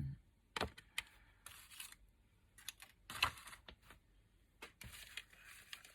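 Paper-craft handling: scattered light clicks and short rustles of paper and card being picked up and worked at a craft table.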